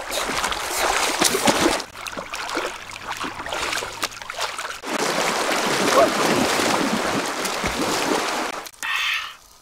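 River water splashing and churning as a person wades and thrashes through the current with a large fish, in several short takes that cut from one to the next.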